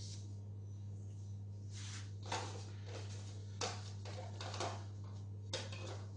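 Rustling with a few light clicks from gloved hands handling garlic cloves, in three short spells, over a steady low hum.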